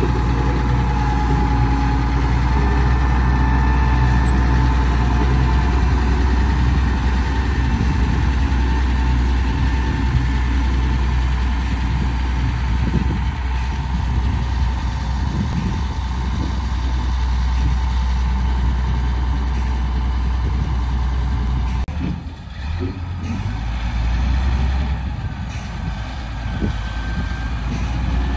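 Diesel engine of a Doosan wheeled excavator running steadily under work as the machine moves across the site. The low engine sound drops briefly a little over three-quarters of the way through, then picks up again.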